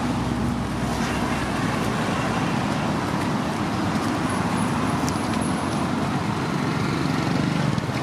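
Steady outdoor background noise with a low rumble, heaviest in the low range, and a few faint clicks.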